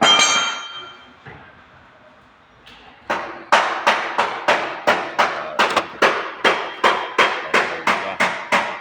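Hammer tapping on a car's sheet-metal body panel during paintless dent repair. A single sharp strike rings briefly at the start, then from about three seconds in comes a steady run of taps, between two and three a second.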